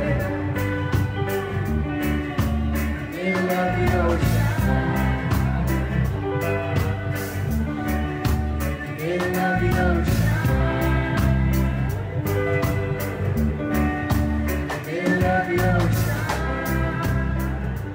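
Background rock music with singing, guitar and a steady drum beat.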